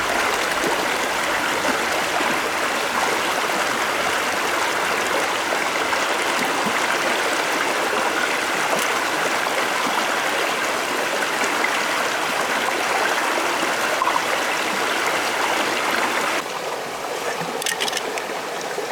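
Stream water flowing steadily, a continuous rushing wash. About sixteen seconds in it suddenly drops quieter, and a few faint clicks follow.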